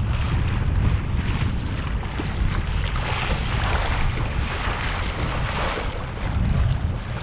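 Wind buffeting the microphone and water splashing against the hull of a kayak moving across choppy water.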